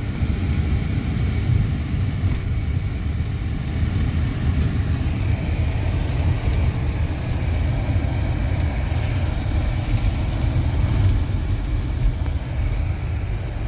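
Steady low rumble of a 2016 Winnebago View motorhome driving along the highway: engine and road noise running evenly throughout.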